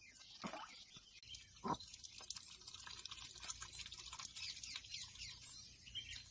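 White domestic ducks dabbling in a tub of rainwater, their bills snapping up floating termites with rapid, faint clicking and splashing.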